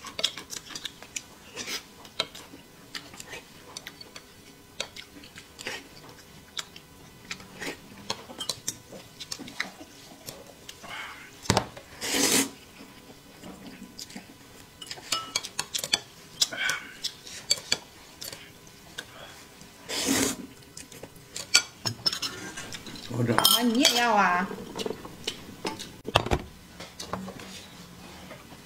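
Spoon clinking and scraping in a cup while instant yam, kudzu and corn porridge powder is mixed with hot water, with scattered taps of tableware and a few louder knocks. A short wavering pitched sound comes late on.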